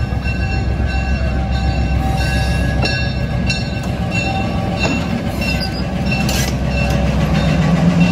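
EMD RS1325 diesel road switcher running as it rolls slowly past, engine drone with the rumble of the train. The engine gets louder near the end as the locomotive draws alongside.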